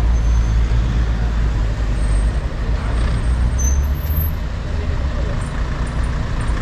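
Street traffic with a large vehicle's diesel engine running close by: a steady low engine hum under a hiss of road noise.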